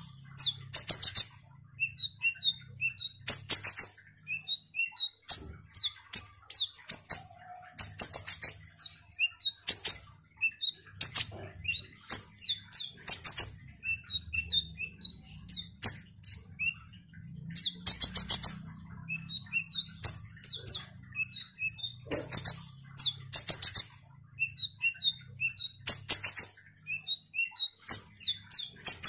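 Caged male kolibri ninja (a sunbird) singing continuously. Bursts of rapid, very high trills alternate with runs of short, thin chips, and the phrases repeat every second or two.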